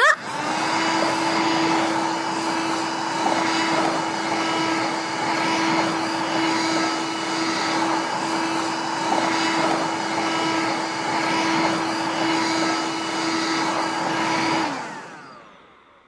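Toy canister vacuum cleaner's small motor running steadily: an even whirring with a steady hum. It fades away about a second before the end.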